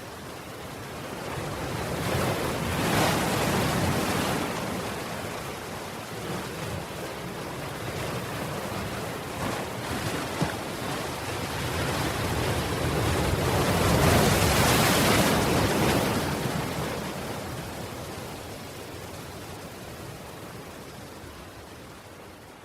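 Sea waves breaking on a stony shore, with a steady surf wash throughout. Two waves swell and break, one about three seconds in and a louder one about fourteen seconds in, and the surf then slowly fades.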